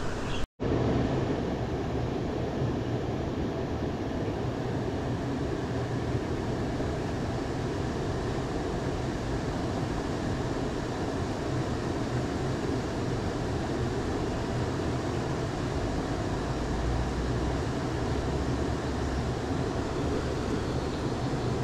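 Steady rushing of a flowing river, an even low rumble with no rhythm, cut by a split-second gap about half a second in.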